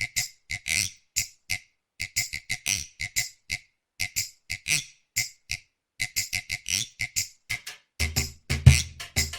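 Music intro of short, crisp percussive sounds in a quick rhythm, pausing briefly about every two seconds, with a deep bass beat joining about eight seconds in.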